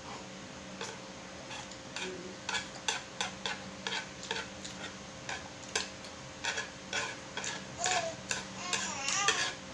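Chopsticks clicking and scraping on a wooden cutting board as loose pancit canton noodles are gathered up, with mouth-eating sounds: a run of short, irregular clicks. A voice is heard faintly near the end.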